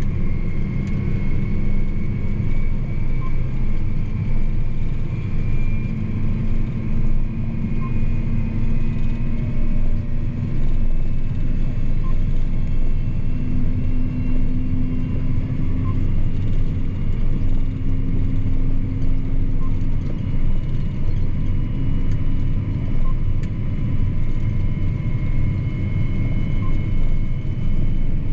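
John Deere 8245R tractor's six-cylinder diesel engine running steadily while hauling a tandem trailer, heard from inside the cab as a constant low drone with a thin high whine above it.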